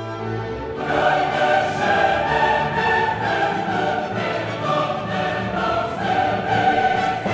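Background music: a choir singing over an orchestra, swelling in over the first second and then held at a steady level.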